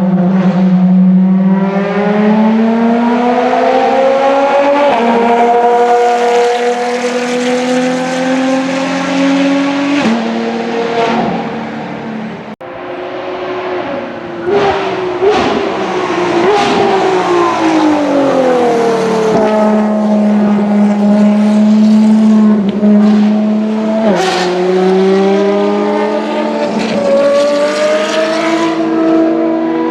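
Ferrari track car's racing engine at high revs, pitch climbing and stepping as it shifts up through the gears. In the middle the pitch falls with short throttle blips, as on downshifts under braking, then it climbs again as the car accelerates away.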